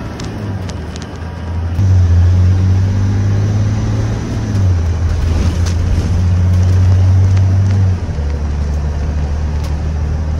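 Cummins ISB 6.7-litre diesel engine of a Thomas C2 school bus running under way, heard from inside the cab. Its low note gets louder about two seconds in, then steps lower near the middle and again near the end. Scattered crackling clicks from an over-sensitive microphone sit on top.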